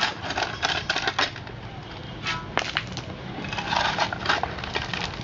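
Hand tools chipping and scraping at broken concrete and loose gravel, with stones clattering: irregular sharp clicks and knocks, and a rougher scrape a little past the middle.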